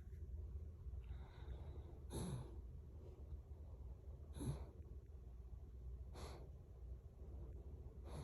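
A small dog snoring softly in her sleep, a short snuffling breath about every two seconds.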